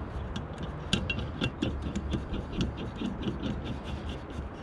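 Hand-operated hose swaging tool being worked by hand as a swage fitting is turned down onto a jetting hose: a quick run of small metallic clicks and scrapes, about five a second.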